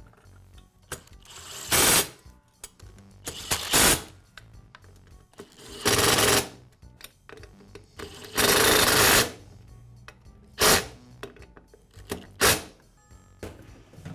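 A cordless power driver runs in six short bursts, driving screws as the circular saw's blade guard is fastened back on.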